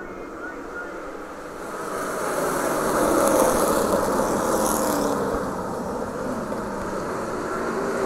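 Oval-track race cars accelerating at full throttle as the green flag drops, their engines growing louder over the first few seconds as the pack comes up to speed.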